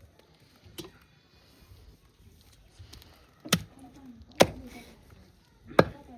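Four sharp knocks at uneven spacing: a light one about a second in, then three loud ones in the second half, each ringing briefly.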